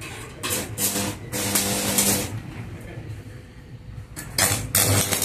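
Knocks and rustling of equipment being handled, with a short steady hum about a second in. Near the end a hissing, crackling burst begins as the stick-welding arc is struck on the shaft.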